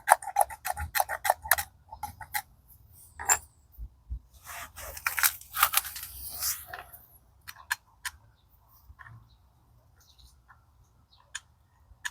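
Small gearbox parts handled on the bench: a quick run of light metallic clinks, then a few single clicks and a stretch of scraping and rubbing a few seconds in, and scattered faint ticks near the end.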